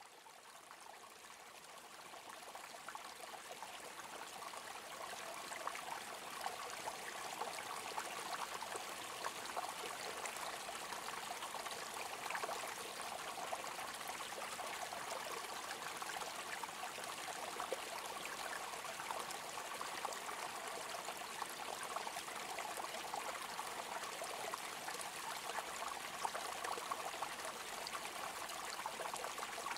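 Running water flowing steadily like a stream, with a trickling, splashing hiss. It fades in over the first few seconds, then holds level.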